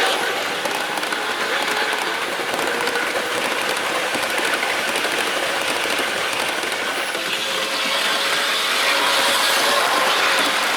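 OJ gauge (1/45 scale) model train running on its track: a steady rolling rattle of metal wheels on the rails with small clicks, over a faint whine from the model locomotive's motor and gears.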